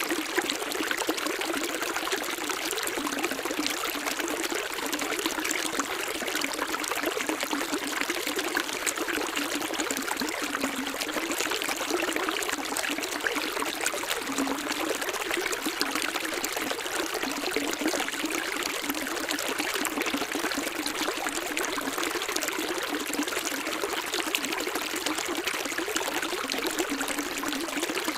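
Running water: a steady, even splashing rush that never pauses.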